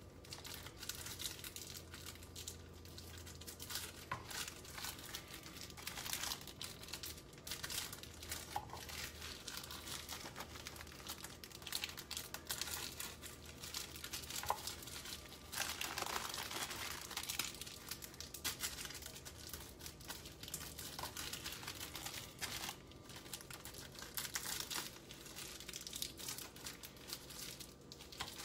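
Plastic wrapper crinkling and crackling as it is handled, in irregular bursts throughout.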